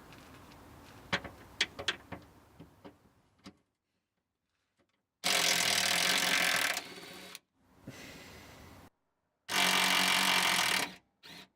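Impact wrench hammering on a stubborn rear sway bar mounting bolt that is slow to break loose, in two loud bursts of about a second and a half each with a quieter stretch between and a short blip near the end. A few sharp clicks come first.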